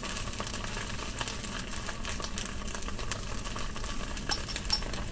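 Ketchup, sausage and a little olive oil sizzling in a frying pan: a steady hiss dotted with small crackles.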